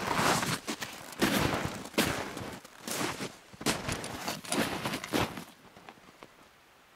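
Snow crunching under feet and a gloved hand close to the microphone: irregular crisp crunches that die away about five and a half seconds in.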